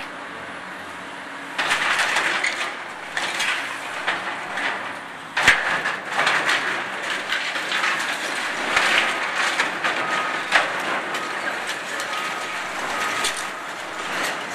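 Excavator tearing down a wooden storefront awning: irregular crunching, cracking and clattering of breaking timber and falling debris, with one sharp crack about five seconds in.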